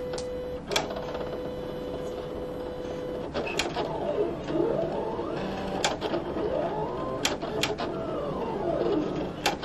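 Silhouette Cameo electronic cutting machine cutting a star shape from cardstock, its motors driving the blade carriage and mat. There is a steady whine for the first three seconds or so, then whines that rise and fall in pitch as the cut changes direction, with a few sharp clicks along the way.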